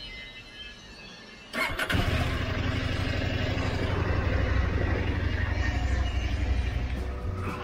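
KTM 890 Adventure R's 889 cc parallel-twin engine started on the electric starter about a second and a half in, catching at once and then idling steadily.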